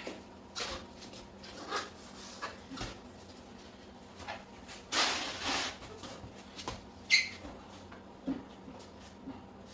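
Scattered scuffs, knocks and rustles as a motorcycle rear wheel and tire are wrestled into place at the swing arm, with a longer scraping rustle about five seconds in and one sharp metallic clink about seven seconds in.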